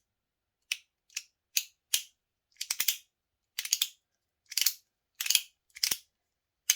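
Titanium MOT Rhythm fidget being worked by hand, giving a string of short, snappy metal clicks, some single and some in quick doubles or triples. The clicks are fairly loud, which is put down to the light titanium muting the sound less than stainless steel.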